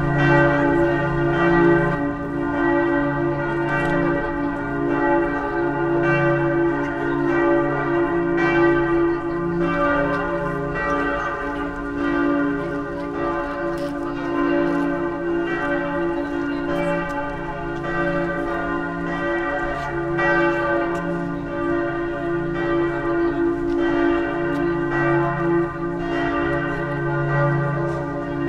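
Several church bells ringing together in a steady, continuous peal, strikes overlapping without a pause.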